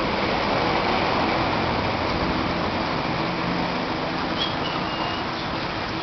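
Steady rushing noise with a low hum underneath, from a reef aquarium's circulation pumps and moving water.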